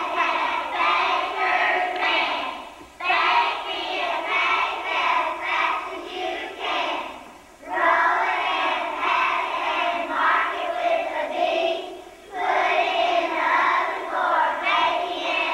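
A group of young first-grade children singing together in unison, in long phrases with brief breaks between lines every four to five seconds.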